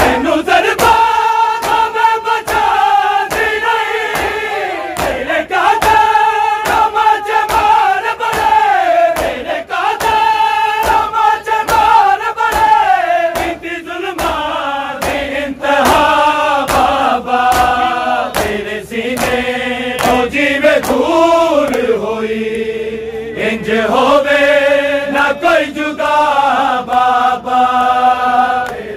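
Many men's voices chanting a Punjabi noha together in long, held, mournful lines, over a steady rhythm of sharp open-handed slaps on bare chests (matam) from the crowd.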